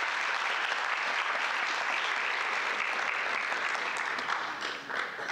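Audience applauding, thinning to a few last claps near the end.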